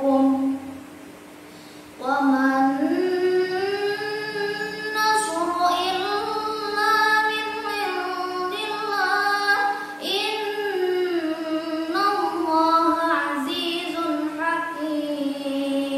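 A young girl's solo voice chanting Quran recitation in the melodic tilawah style, with long held notes that glide and ornament up and down. She breaks off for a breath of about a second and a half near the start, then resumes.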